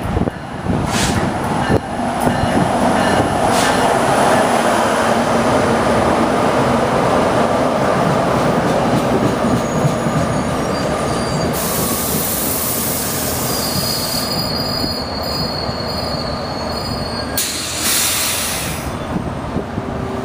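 Train running past at close range: a steady, loud rumble of wheels on rail. About two-thirds of the way through, thin high wheel squeal comes in, and two bursts of high hiss can be heard.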